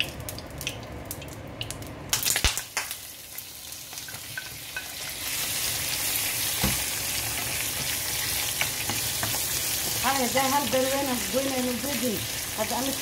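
Liver, onion and chilli tipped into a hot oiled pan with a few knocks, then sizzling steadily as they are stirred with a wooden spoon; the sizzle grows louder about five seconds in. A voice is heard in the background near the end.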